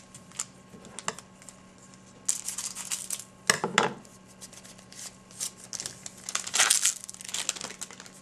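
Trading-card pack wrapper crinkling and tearing as a pack of Topps Co-Signers basketball cards is opened, in several short crackling bursts.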